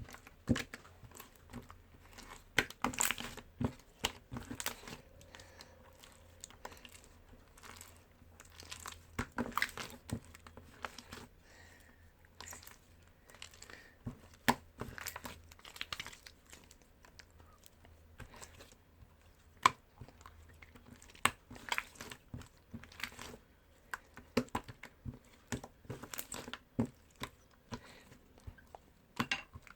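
Slime being squeezed and played with by hand, making irregular sticky clicks and pops.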